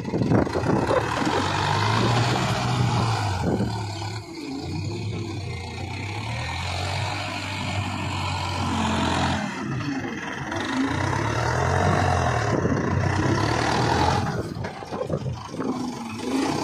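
Tractor diesel engine running, its pitch rising and falling several times as the tractor drives and works its front bucket loader.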